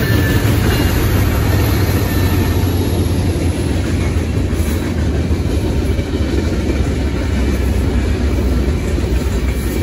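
Freight train cars rolling through a road crossing, a steady low rumble of wheels on the rails.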